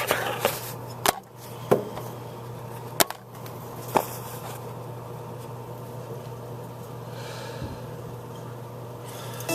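A handful of sharp clicks or taps in the first four seconds over a steady low hum.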